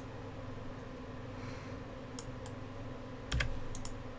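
Computer keyboard keys clicking in a few scattered keystrokes, several of them in the last two seconds and the loudest about three and a half seconds in, over a steady low hum.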